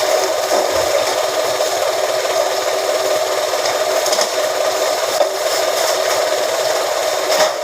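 A motor-driven press machine running steadily with a constant drone, with a few light knocks over it.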